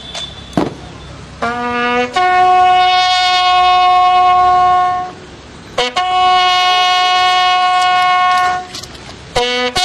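A horn blown in two long held notes at the same pitch, the first coming after a few short lower notes and the second after a brief break.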